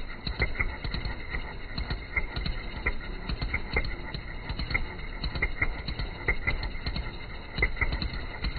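Miniature V-twin model engine running with an uneven, loping beat of knocks and ticks.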